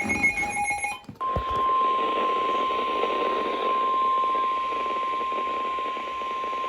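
NOAA Weather Radio warning alarm tone: a single steady tone of about 1050 Hz that comes on about a second in and holds, over radio static. It is the attention signal sounded ahead of a new warning broadcast. In the first second, before the tone, there is a short burst of several other tones.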